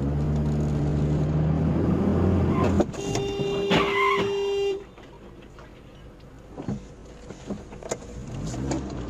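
A car horn sounds as one steady note for about two seconds, starting about three seconds in, just after a sharp knock; before it, the steady hum of the car in traffic.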